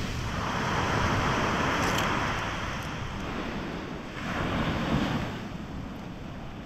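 Sea surf washing onto the beach, rising and falling in two slow swells, with some wind on the microphone.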